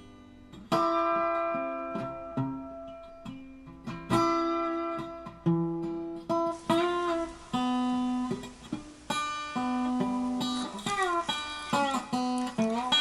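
Background music: plucked guitar picking a melody, with sliding, bending notes in the second half.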